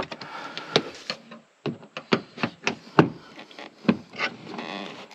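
Irregular clicks, knocks and scraping of plastic interior trim panels and their clips being pried loose and handled.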